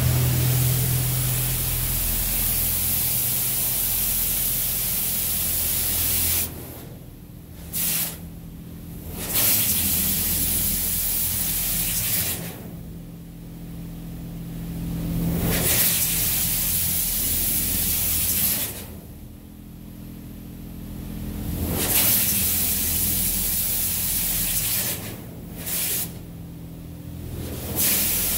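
High-pressure water jets of a touchless automatic car wash blasting the outside of a cargo van, heard from inside its bare sheet-metal body as a loud steady hiss. The spray fades away and returns several times, over a steady low hum.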